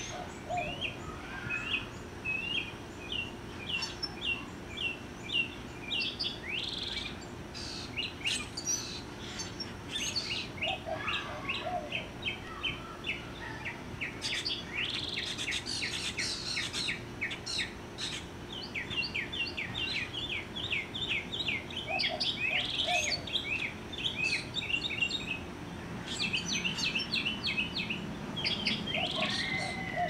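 Northern mockingbird singing: a continuous run of short, high chirping notes, each kind repeated several times in quick series before it switches to another.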